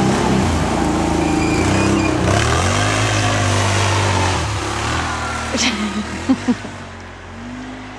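Engine of a Can-Am ATV on snow tracks revving under load as it pulls away towing a boat over snow, pitch rising and falling, then fading as it moves off.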